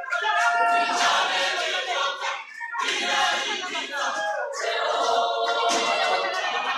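Gospel choir singing, many voices together, with a brief break in the singing about two and a half seconds in.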